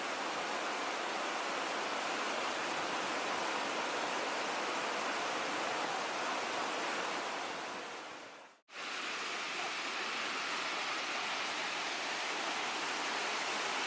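Waterfall: a steady rush of falling water that cuts out for a moment a little past halfway, then carries on.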